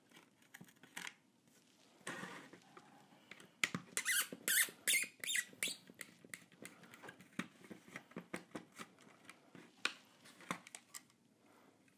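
Small bolts squeaking as they are turned out of the orange 3D-printed plastic LCD housing of a Prusa i3 MK3 with a small driver. A quick run of short squeaks comes about four seconds in, with light clicks and handling noise around it.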